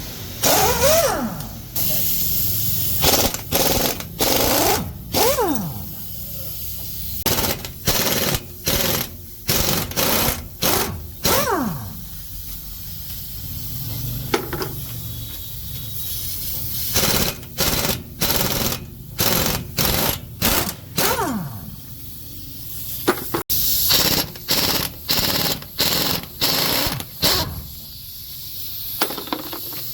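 Impact wrench on heavy truck wheel bolts, run in short repeated bursts of hammering. Several bursts end with the motor's pitch falling as it spins down.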